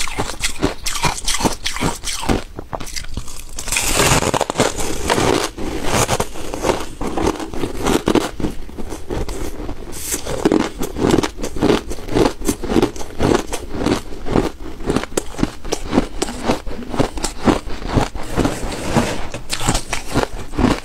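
Frosty ice chunks bitten and chewed right at the microphone: a continuous run of sharp, quick crunches.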